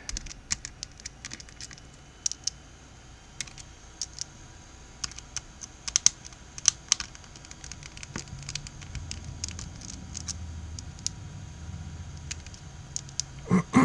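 Irregular small clicks and taps of a precision Phillips screwdriver working the tiny screws out of a Samsung Focus smartphone's back housing, with the phone shifted about in the hands.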